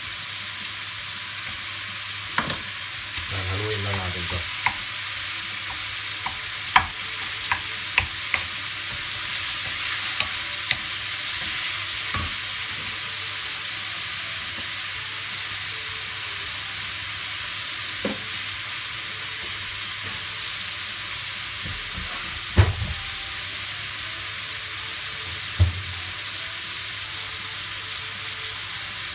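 Diced pancetta frying in oil in a wok, a steady sizzle that grows louder for a couple of seconds about ten seconds in as chopped garlic goes into the pan. Occasional sharp knocks and clicks of the knife and utensils sound over it.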